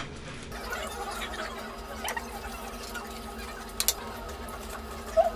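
Steady low room hum with a few sharp clicks of tableware, twice loudly near the end, as chopsticks and plates knock together at a meal.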